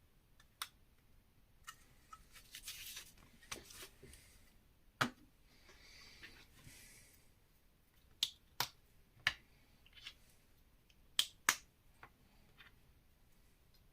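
Plastic Lego bricks clicking as pieces are pressed and snapped together, a dozen or so sharp separate clicks, some in quick pairs. There are two short stretches of soft rustling in the first half.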